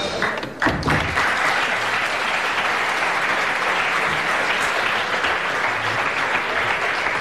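Studio audience applauding steadily, beginning about a second in after a couple of low thumps.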